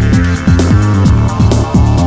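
Electronic background music with a steady beat and a deep bass line.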